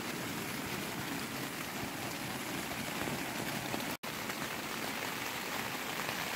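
Rain falling steadily, an even hiss of drops, with a brief break about four seconds in.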